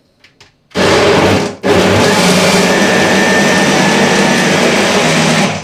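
Countertop blender motor running, mixing a thick mixture in its jar. It runs in a short burst about a second in, stops for a moment, then runs steadily for about four seconds with a faint high whine in it.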